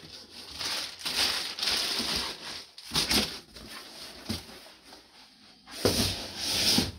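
Packing material rustling and crinkling in irregular bursts as items are handled, the loudest stretch about six seconds in.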